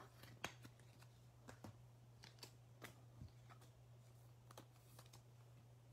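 Trading cards being handled and sorted on a table: a scatter of faint clicks and taps, the two sharpest in the first half second, over a faint steady hum.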